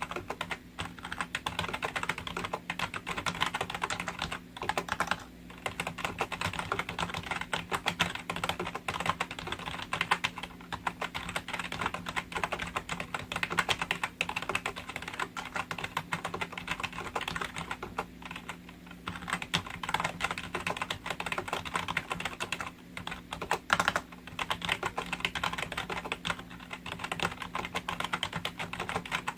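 Continuous fast typing on a Logitech G213 membrane keyboard, its rubber-dome keys giving a dense clatter of keystrokes with a few short pauses. A low steady hum runs underneath.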